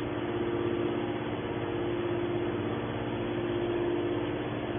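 Hydraulic can baler's motor and pump running with a steady, unchanging hum.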